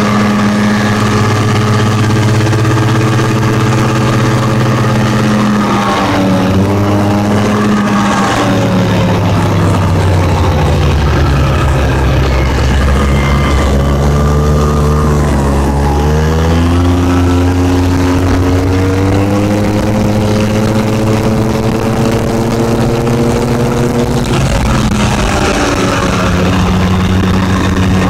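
A four-wheeler (ATV) engine running while riding. Its pitch falls as it slows about a third of the way in, stays low for several seconds, then rises as it speeds up again, with another brief dip near the end.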